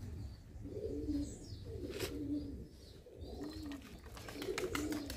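Domestic pigeons cooing: a string of short, low coos about once a second. A single sharp click comes about two seconds in.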